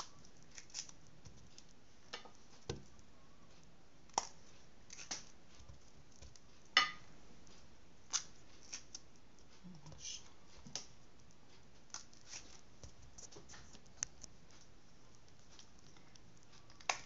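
Irregular light clicks and taps, one or two a second, the loudest a little before the middle, over a faint steady hiss: small handling noises in a kitchen.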